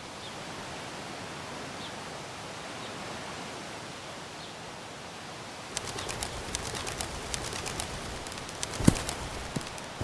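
Steady outdoor ambience with a few faint bird chirps. About six seconds in, a rapid flurry of clicks and flutters breaks out, with a loud thump near the end, as the stack of cartoon birds topples onto the ground.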